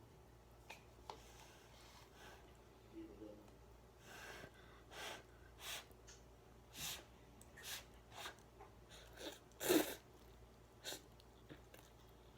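Mouth sounds of someone eating fiery Samyang spicy ramen: a run of short, noisy slurps and sharp breaths, about one a second, with the loudest one near the end.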